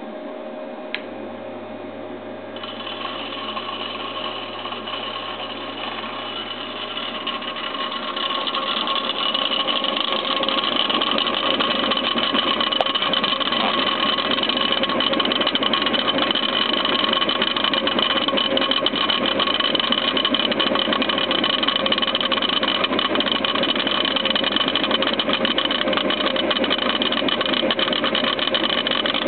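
Agromay S21 rice grain analyzer starting up and running: a click about a second in, then a steady mechanical whirr and hum from its motors and grain feed chute that grows louder over the first eight seconds or so and then holds steady, with light rapid ticking.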